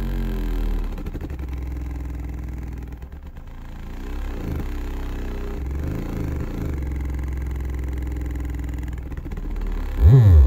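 Sundown Powersports 8-inch marine subwoofer, held in free air and driven from an amplifier at 2 ohms, playing a bass test track of deep steady tones and frequency sweeps gliding up and down. A loud, fast sweep comes near the end.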